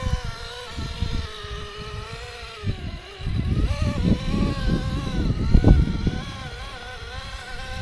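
RC rock crawler's electric motor and gearing whining as the crawler creeps up a steep rock. The pitch wavers up and down with the throttle. Low rumbles and knocks run underneath and are loudest a little after the middle.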